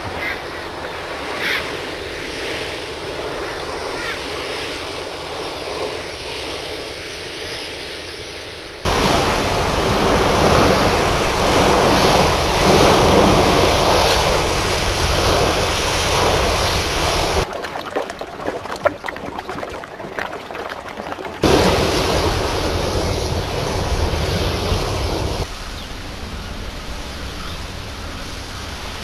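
Seaside surf and wind ambience that changes abruptly: moderate at first, then loud breaking waves from about nine seconds in, a quieter stretch of scattered clicks a few seconds later, then surf again.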